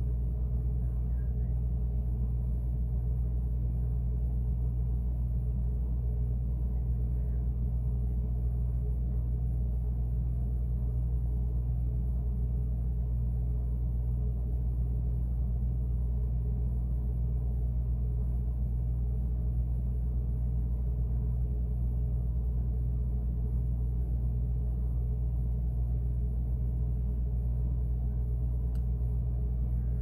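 Refrigerator running, heard from inside the closed fridge: a steady low hum that does not change.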